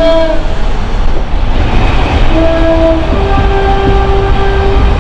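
Train's two-tone horn: the tail of a note right at the start, then a short lower note about two seconds in followed by a higher note held about a second and a half. Under it runs the train's steady running rumble and wheel noise.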